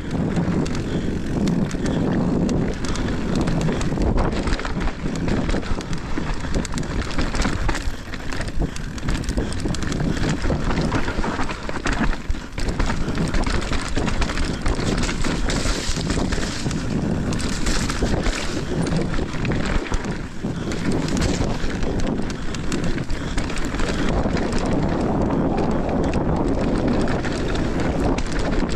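Mountain bike riding down a dirt singletrack: tyres rolling and the bike rattling with many small knocks over the rough trail, with steady wind noise buffeting the helmet camera's microphone.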